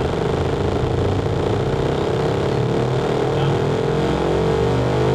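Electronic drone played over a club PA during a soundcheck: steady low bass tones under a stack of tones slowly rising in pitch.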